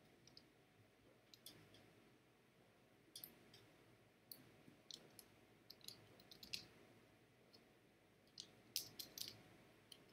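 Faint, scattered keystrokes on a computer keyboard, a few clicks at a time with pauses in between; the quickest run of keys comes near the end.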